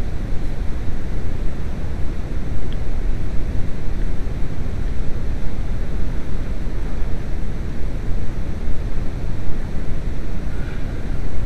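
Audi 1.8T inline-four turbo engine running at idle, a steady low rumble heard close up in the engine bay.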